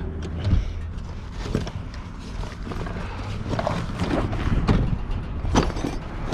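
Hand tools knocking and clinking in a tool bag being rummaged through, a few scattered knocks, over a steady low engine hum.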